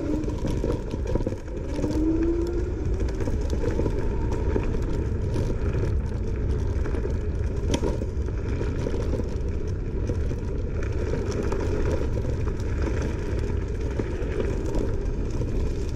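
Steady rumble of a Langfeite L8S electric scooter riding over rough off-road ground, tyre and wind noise on the microphone, with scattered rattles and clicks and a short rising whine about two seconds in.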